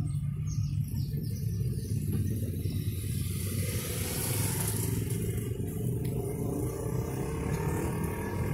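A car driving along a town street, its engine and tyre rumble heard steadily from inside the cabin.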